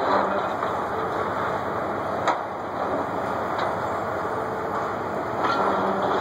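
Hydraulic excavators demolishing a brick building: a steady diesel engine hum with a few sharp knocks and clanks of breaking debris.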